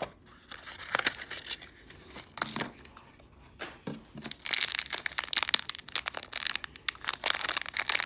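Hands crinkling and pulling at a small plastic blind-bag wrapper, struggling to tear it open. A few light handling clicks come first, then dense crinkling from about halfway through.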